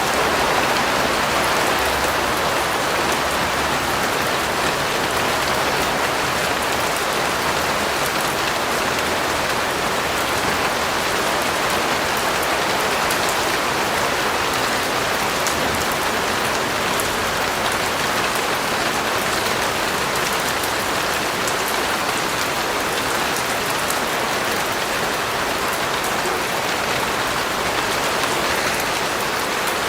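Steady rain falling and pattering on a surface, an even hiss of drops.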